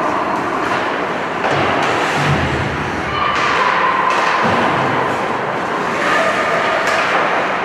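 Ice hockey game noise in an echoing indoor rink: a steady din of skates and sticks on the ice, with a few low thuds about two seconds in and again midway.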